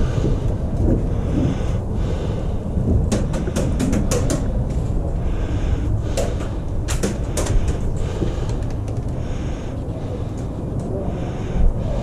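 Airsoft guns firing: two quick strings of sharp snapping shots, the first about three seconds in and the second about six seconds in, over a steady low rumble of wind on the microphone.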